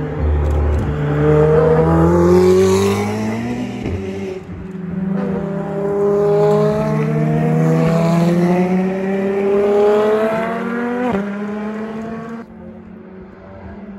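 Ferrari FXX K V12 engines at full throttle as the cars pass, pitch climbing through each gear with sudden drops at the upshifts about four, eight and eleven seconds in. The sound is quieter near the end.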